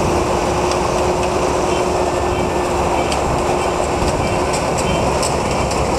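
Kubota DC93 diesel combine harvester cutting and threshing rice. The engine and threshing machinery make a dense, steady rumble with a steady hum that fades out about four seconds in. Rapid sharp ticks grow thicker through the second half.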